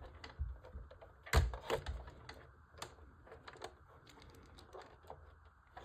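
Small model-kit parts being handled and fitted by hand: irregular light clicks and taps, with a louder knock about a second and a half in.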